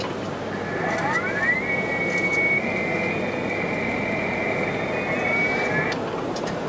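A high whine that climbs in pitch over about a second, holds steady for about four seconds, then cuts off suddenly, over a steady background noise.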